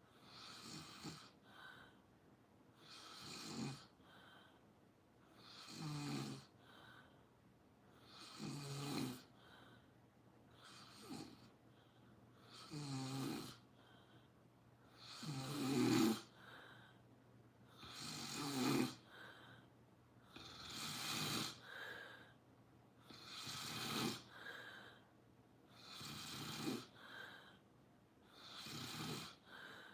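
Steady, rhythmic snoring: about a dozen rattling snores, one roughly every two and a half seconds, with quiet breaths between them.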